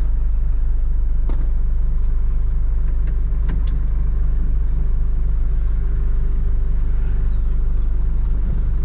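Steady low rumble of a Hino box truck idling, with a few light clicks about one and a half and three and a half seconds in.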